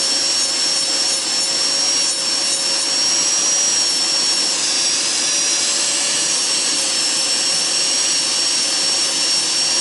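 Electric nail drill with a carbide bit sanding old gel off a fingernail, its thin steady high whine over the steady noise of a tabletop nail dust extractor fan.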